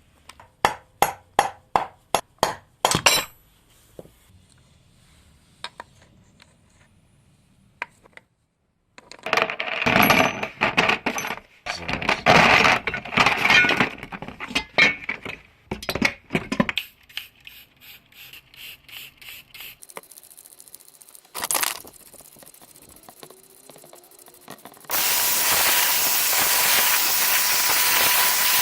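Hand work on metal parts: a quick run of about ten sharp metallic knocks, then several seconds of loud scraping strokes, a single knock, and a steady hiss in the last few seconds.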